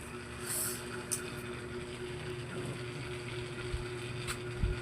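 Yamaha Mio i 125 scooter's single-cylinder engine running steadily while ridden, with wind on the microphone and two low thumps near the end. The engine ran dry of oil and, in the rider's words, has no power left.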